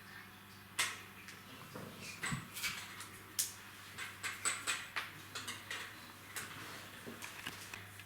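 Light, irregular clicks and clinks of hard toy-crane parts being handled and fitted together, the sharpest knocks about a second in and midway through.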